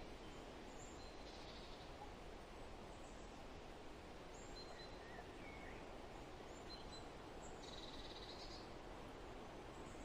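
Wild songbirds calling faintly: scattered short high chirps and whistles, and one buzzy trill about eight seconds in, over a steady low background hiss.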